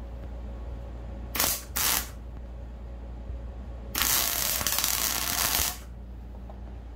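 Hobart Handler 125 MIG welder arc crackling while plug-welding sheet metal to flat bar with 75/25 argon-CO2 gas: two brief bursts about a second and a half in, then a steady run of nearly two seconds from about four seconds in.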